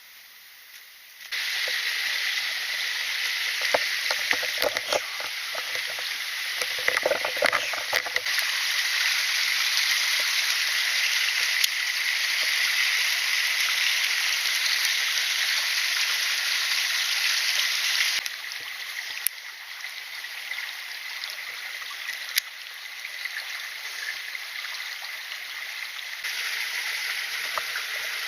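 Mountain stream water rushing steadily, with a few clicks and knocks about four to eight seconds in. The rush drops in level about eighteen seconds in and rises again near the end.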